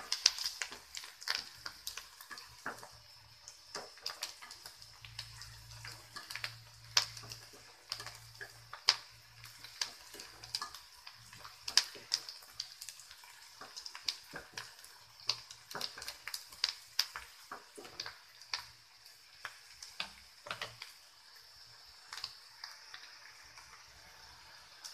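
Sliced onions frying in hot mustard oil in a kadhai, a steady high sizzle with frequent sharp crackles of spitting oil, while a spatula stirs and scrapes them in the pan. The onions are being fried until golden.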